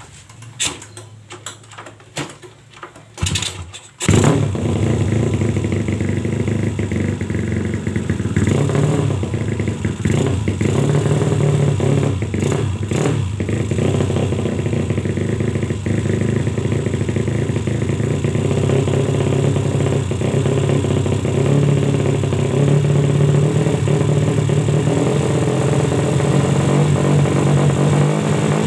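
Honda C70 with a swapped-in 200cc SOHC C-series engine being kick-started: a few knocks of the kickstarter, then the engine catches about four seconds in and runs at a steady idle while its carburettor is being set.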